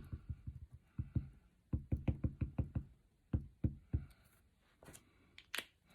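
A stamp mounted on its block dabbed again and again onto a red ink pad: quick runs of light knocks, about five a second, then a couple of single taps.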